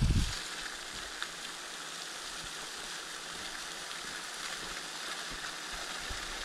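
Steady, even outdoor background hiss with a faint click about a second in; a low rumble stops just after the start.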